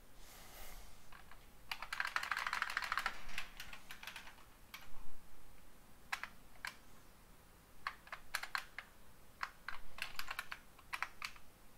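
Typing on a computer keyboard: a quick run of keystrokes about two seconds in, then scattered single keys and short bursts.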